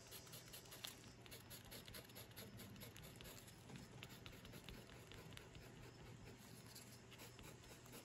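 Faint, quick scratching of a wooden barbecue skewer tip scraping short strokes through oil pastel on paper, scratching out feather texture. It is a steady run of small ticks, one stroke after another.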